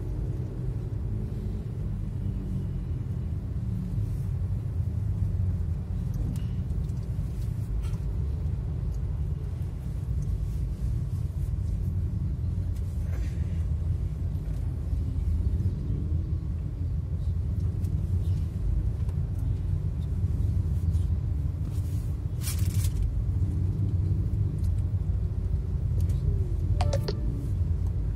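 Steady low rumble of slow road travel in dense city traffic: vehicle engines and tyres, with two brief sharper, higher sounds in the last third.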